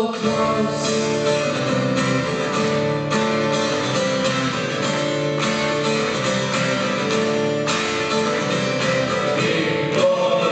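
Live band and orchestra playing a song, led by strummed acoustic guitar in a steady rhythm over sustained chords.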